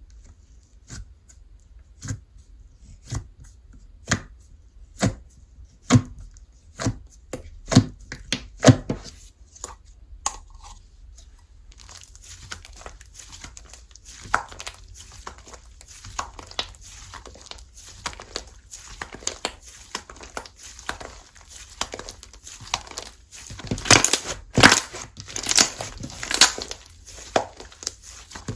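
Slime being worked by hand close to the microphone. Sharp single pops come about once a second at first, growing louder. After about twelve seconds they give way to dense, continuous crackling and crinkling, with the loudest bursts near the end.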